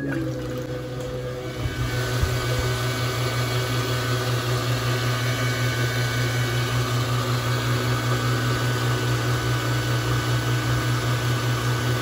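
American Standard garbage disposal running with a steady, loud motor hum. About two seconds in, a rushing wash builds as a full sink of water pours down through the unit, running it under load.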